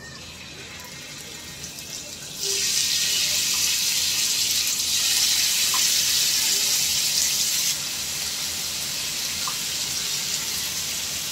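Marinated chicken skewers sizzling in a hot, lightly oiled ridged grill pan as they are laid in one by one. The sizzle jumps louder about two and a half seconds in and eases a little after about eight seconds.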